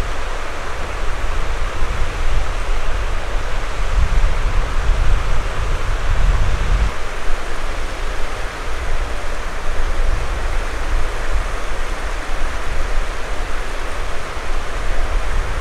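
River water rushing steadily, an even hiss, with a low, uneven rumble underneath that swells about four to seven seconds in.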